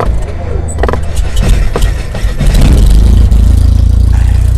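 Logo-intro sound effect: a deep, loud, steady rumble with sharp crackles and clicks over it, most of them in the first two seconds.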